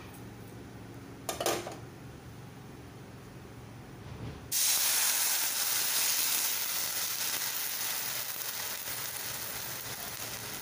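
Water poured into a hot wok of vermicelli roasted in oil, hissing and sizzling loudly. The hiss starts suddenly about four and a half seconds in and slowly fades as the water comes to a bubble.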